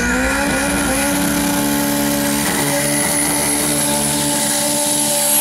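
Drag car's engine held at high, steady revs during a burnout, with a thin high whine slowly rising above it.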